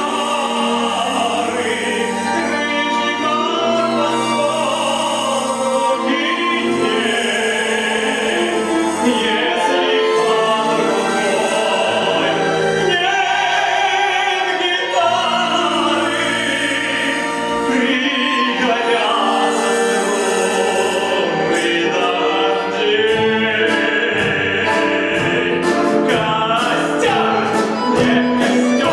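Male voice singing an operetta song in the light-opera style, accompanied by an orchestra. Sharp rhythmic beats join in over the last several seconds.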